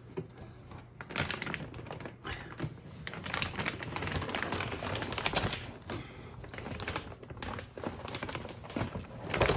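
Packaging being handled: a dense run of small clicks, crackles and rustles, starting about a second in, as a rack server is worked out of its shipping box.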